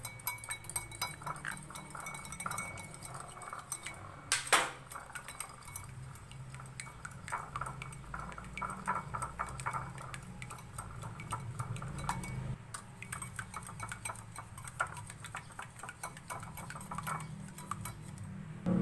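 Kitchen bowl and utensils clinking and clattering, as many small ticks and clicks with one sharper knock about four and a half seconds in.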